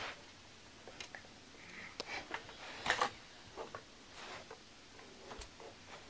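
Faint handling noise of plastic toy figurines and a toy playhouse: a scattering of light clicks and short rustles, the loudest about three seconds in.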